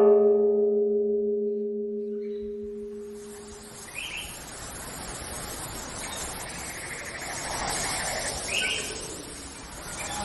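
A single bell-like tone rings and fades away over about four seconds. A steady airy hiss then takes over, with two short bird-like chirps, about four seconds in and near the end.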